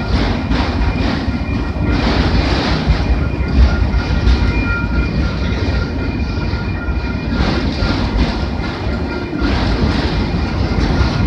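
Freight train of autorack cars rolling past at a road crossing: a steady rumble of steel wheels on rail, with repeated clicks as the wheels pass over rail joints.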